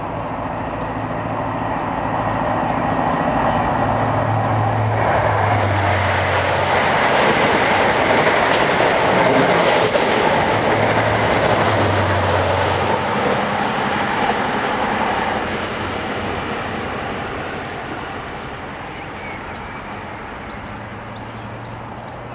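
Steam-hauled passenger train behind Bulleid light Pacific 34067 Tangmere passing at speed, its coaches' wheels clattering over the rails. The sound grows loud over the first few seconds, peaks midway, then fades as the train recedes.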